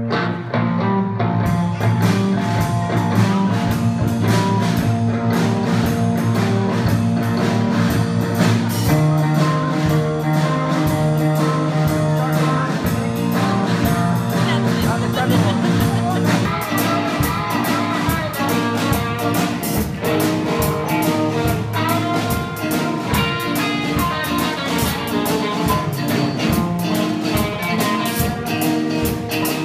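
Live band playing a song on electric guitars, bass guitar and drum kit.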